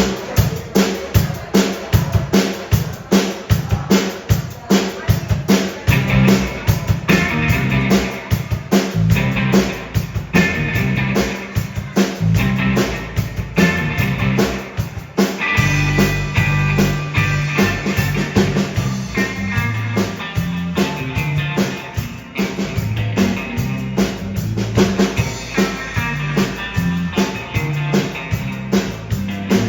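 Live band playing: a drum kit keeps a steady beat over bass notes, and pitched instrument lines come in about six seconds in.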